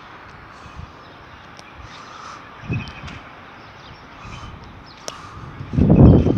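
Faint, scattered bird calls over a low background hiss. Near the end, a loud gust of wind buffets the microphone.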